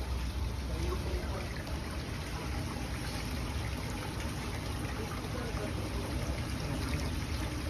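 Decorative garden fountains trickling and splashing water steadily.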